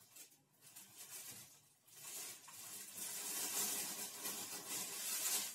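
Corn sticks crackling and rustling as they are mixed by hand with cream in a bowl; the crackle thickens and grows louder about two seconds in.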